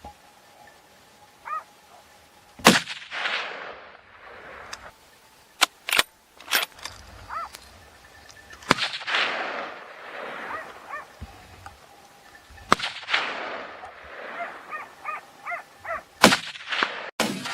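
A series of gunshots, about eight spread irregularly through the stretch, each trailing off in a long rolling echo. Dogs yelp briefly between the shots.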